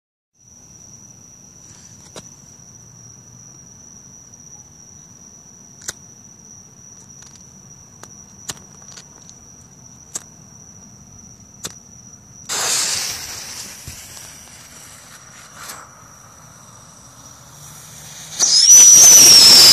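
A lighter clicking several times, then a firework fuse catching with a hiss; near the end a whistling firework ignites into a loud, shrill whistle that starts to fall in pitch. A steady high-pitched tone runs underneath the first part.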